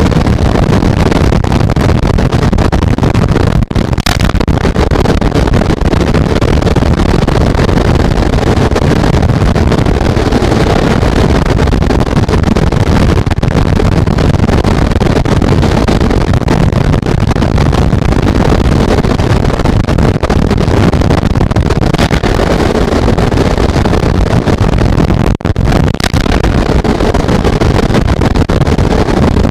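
Heavy storm rain and wind on a falcon nest box, a loud, steady rushing noise with a deep rumble from wind on the microphone.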